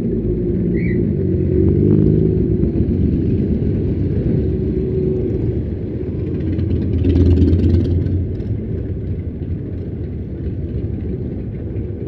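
Motorcycle engine running at low speed, its pitch rising and falling with the throttle in the first few seconds. About seven seconds in the rumble swells louder as other motorcycles pass close by.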